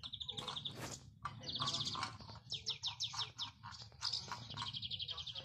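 Small songbirds singing: rapid trills and repeated series of quick falling chirps, one after another, with a sharp click about three-quarters of a second in.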